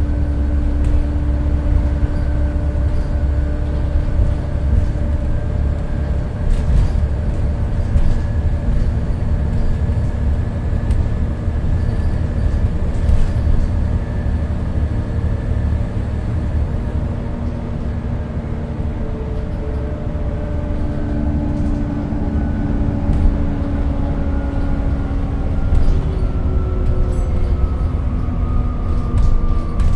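Volvo B7TL bus's inline-six diesel engine running under way, with a heavy low rumble and a steady drone. Over the last ten seconds or so the engine note slowly falls, as when the bus eases off and slows.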